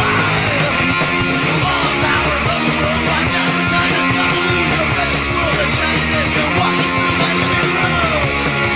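Early-1980s punk rock record playing, the full band going at a steady, loud level.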